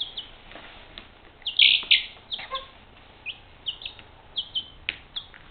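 Young domestic chicken chick peeping: a string of short, high peeps, loudest in a quick cluster about one and a half to two seconds in, then single peeps every half second or so.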